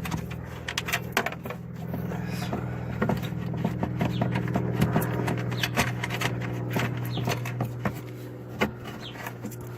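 Scattered clicks and knocks of a fog light assembly being worked loose and pushed out through the front bumper, over a steady low hum.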